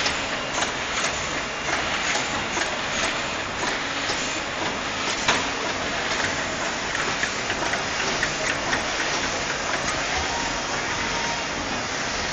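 Coffee packaging machines running: a steady mechanical din with frequent light clicks and rattles.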